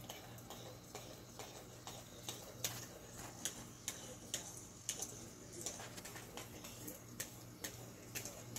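Irregular sharp clicks, about one or two a second and varying in loudness, over a steady low hum.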